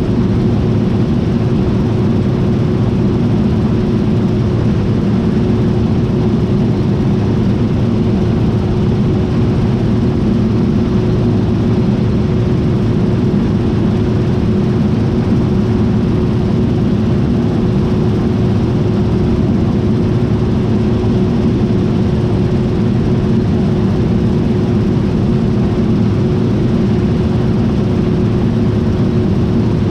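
John Deere T660i combine harvester running steadily: an even engine and machinery drone with a constant hum that holds one pitch.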